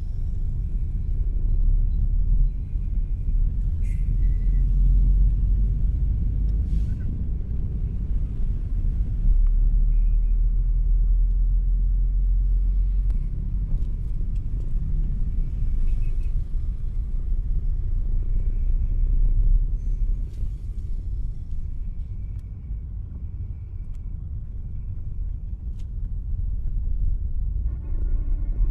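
Low, steady rumble of vehicle and road noise from slow-moving, congested car and motorbike traffic, with a few faint short high tones and clicks.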